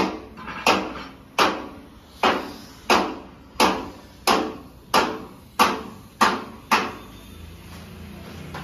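Hammer blows on steel, struck at an even pace of about one and a half a second, each with a brief ringing tail. They stop about seven seconds in.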